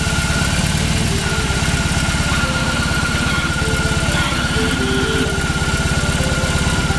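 BMW R18's big air-and-oil-cooled boxer twin idling steadily, with an even low pulse and a steady high-pitched whine over it.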